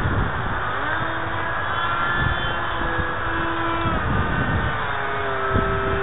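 Electric motor and propeller of an RC foam jet flying overhead: a Turnigy 2632 1500kv brushless motor giving a thin steady whine that shifts in pitch as the throttle changes, under a heavy rumble of wind on the microphone.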